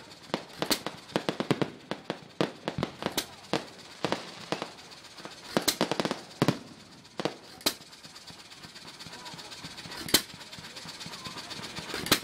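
Aerial fireworks bursting overhead: a rapid, irregular run of sharp bangs and crackles, thinning after about eight seconds to a few single loud bangs.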